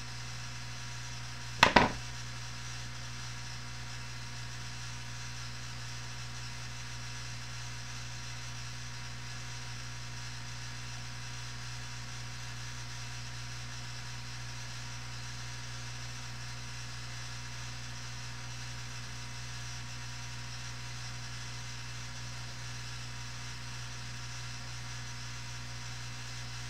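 Steady electrical hum and hiss from a poor-quality microphone, with one brief sharp knock about two seconds in.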